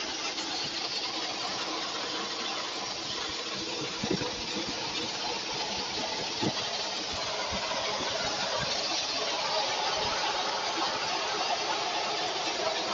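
Aérogommage (fine abrasive blasting) gun hissing steadily as compressed air and media strip old furniture, with a few short knocks about four and six and a half seconds in.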